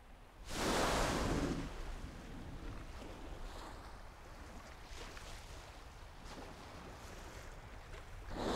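Ocean water washing and surging over a low steady rumble, with a loud rushing surge about half a second in that lasts about a second, and another starting near the end.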